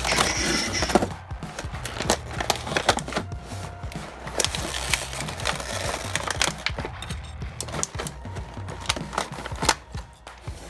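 Clear plastic blister packaging crinkling and clicking as a toy robot lion is pulled from its tray and freed from its twist ties. The sound is a string of small irregular clicks and rustles, thickest in the first second.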